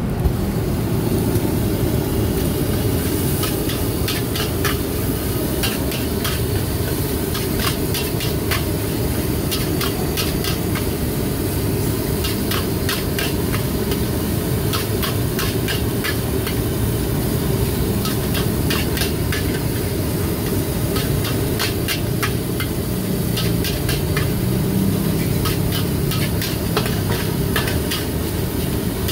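Metal spatula clanking and scraping against a wok as fried rice is stir-fried, with sizzling, over a steady low rumble. The clanks come irregularly, several a second.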